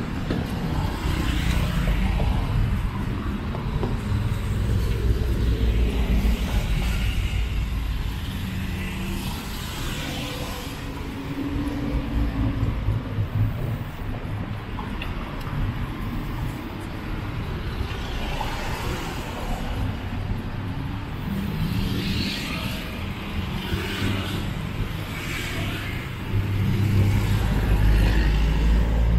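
Road traffic passing close by: cars, a pickup and motorcycles driving past one after another, engines running and tyres swishing on the road, each pass swelling and fading. The loudest pass comes near the end as a pickup goes by close.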